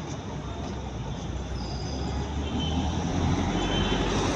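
Heavy road traffic: the steady engine and tyre noise of passing vehicles, growing louder near the end as a vehicle passes close.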